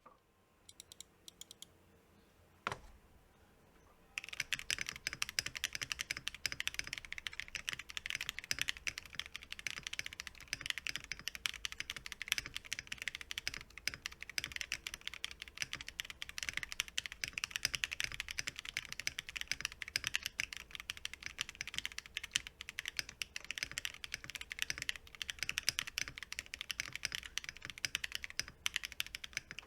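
Typing on a Tofu65 custom mechanical keyboard with Glorious Panda tactile switches, XMI Baybayin keycaps, an aluminium plate, modded Durock v2 stabilisers and a tempest-tape-modded DZ65 PCB. A few scattered keystrokes and one louder stroke about three seconds in, then fast continuous typing from about four seconds on.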